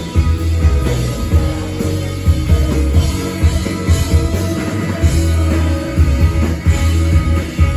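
Live indie rock band playing: electric guitars and keyboard over a steady drum beat.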